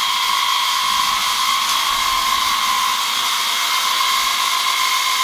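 12-volt mini air compressor (tyre inflator) running steadily off a portable generator's 12-volt socket: a constant high motor whine over a hiss of rushing air.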